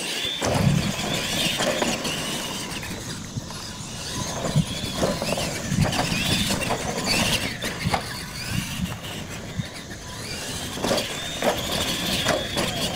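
Two radio-controlled monster trucks racing side by side on dirt: the motors and gears whine, rising and falling in pitch as the drivers throttle, with repeated thumps as the trucks hit and land off the ramps.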